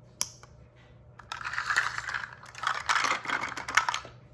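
Plastic shape sorter toy pieces clattering and rattling: one sharp click just after the start, then two rattling passages of about a second each, full of quick small clicks.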